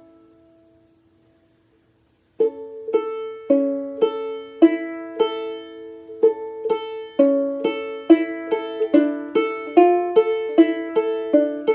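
Tenor banjolele (banjo-ukulele) in gCea tuning being played: a chord rings out and dies away, and after a short pause a new passage of sharply plucked chords begins, about two a second at first and coming quicker toward the end.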